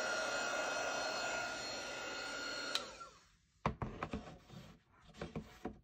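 Embossing heat gun running with a steady whir and whine, switched off with a click a little under three seconds in and spinning down. A few light knocks and taps of handling follow.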